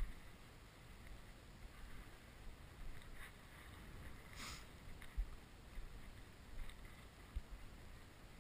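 Wind buffeting the camera's microphone in an uneven low rumble, with a brief rustle of dry stubble about four and a half seconds in.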